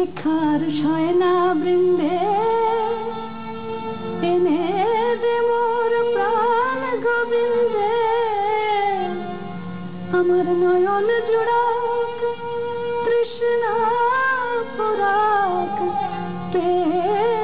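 Indian song: a melodic vocal line with gliding, ornamented held notes over instrumental accompaniment and a lower stepping bass.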